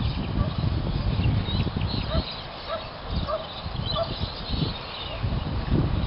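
Wind buffeting the microphone with a low, uneven rumble. Over it a bird calls a short note about five times at even spacing in the middle, with scattered higher chirps.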